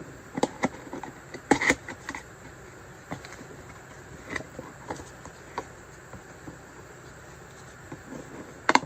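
Cardboard action-figure box being opened by hand: scattered clicks, taps and scrapes of the packaging. The loudest come about a second and a half in and again near the end.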